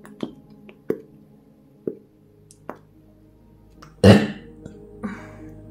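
A few light clicks of a plastic glue tube being handled, then, about four seconds in, a loud short squelch as clear glue is squeezed out of a plastic squeeze bottle, with a smaller one a second later. Soft music plays underneath.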